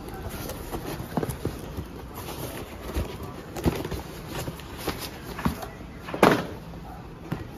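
Cardboard being handled as a product box is slid out of a corrugated shipping carton: irregular scrapes, rustles and knocks of card on card, the loudest knock about six seconds in.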